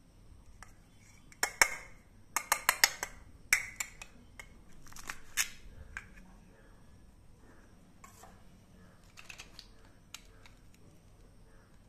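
Plastic toy watermelon pieces clicking and knocking together as the halves are handled and pressed into one ball, in quick runs of sharp clicks during the first half and a few fainter ones later.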